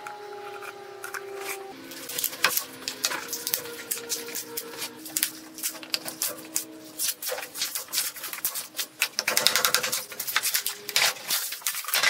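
Sharp clicks, knocks and cracking as a cured resin-and-walnut blank is pried loose from a plastic casting mold with a hand tool. The clicks come thick and fast a little before the end, and a faint steady hum of several tones sits under the first half.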